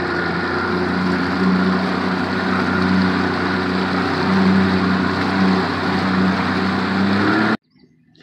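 Boat motor running steadily under way, with water and wind rushing around the hull; it stops abruptly near the end.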